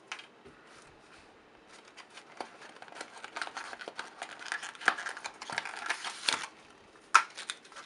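Thin cardboard packaging and its contents handled and rummaged through, a quick run of crackles, scrapes and taps, with one sharper click near the end.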